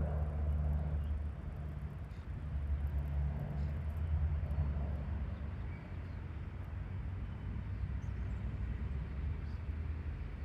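A low, steady engine rumble with a hum that swells and eases over a few seconds.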